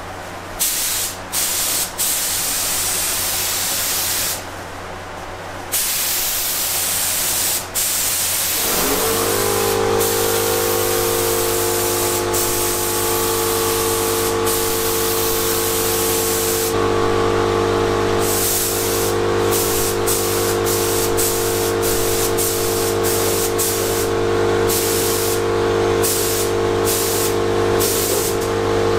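Air spray gun hissing as primer is sprayed, cutting in and out in short bursts as the trigger is pulled and released. About nine seconds in, a motor starts with a brief rising whine and settles into a steady hum under the continuing spray.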